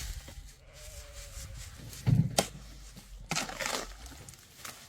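A goat bleating briefly about two seconds in, over intermittent scraping of sand being sifted in a dustpan.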